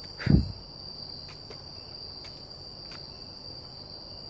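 Steady high-pitched chorus of night insects, with a single loud low thump just after the start and a few faint clicks.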